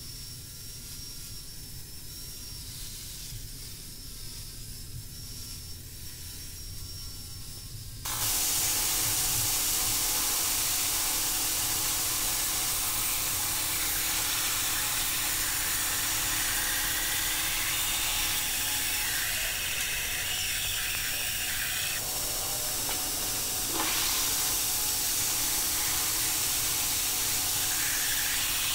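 Angle grinder's abrasive disc running against a 1070 steel sword blade, grinding off forge scale with a steady hiss and a thin whine. About eight seconds in, a sudden step to a louder, even hiss: the blade being ground on a belt sander, which runs steadily to the end.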